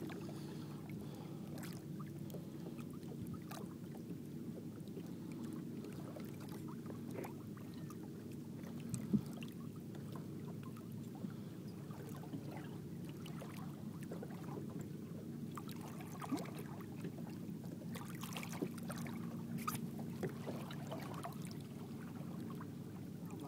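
A boat engine idling steadily, with light splashing and dripping water as a bluefish is held and stirred in the water alongside the hull.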